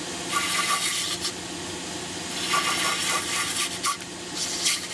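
Wood lathe running with a steady hum while a gouge cuts into a spinning turnip to hollow it out, the scraping cutting noise coming in a few passes.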